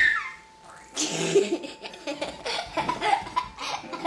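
Laughter in a run of short bursts, starting about a second in.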